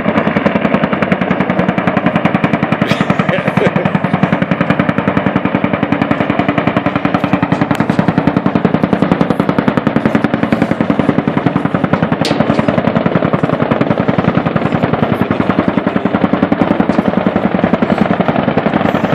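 One long, unbroken burst of rapid machine-gun fire from helicopter-mounted guns during a live-fire demonstration pass, a fast steady rattle with no pause.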